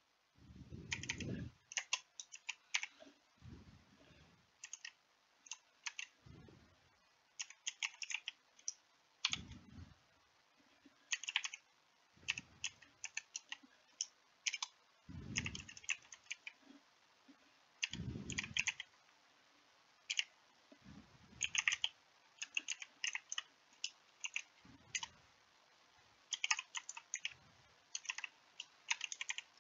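Computer keyboard typing in irregular runs of quick key clicks, with a few soft low thumps between the runs.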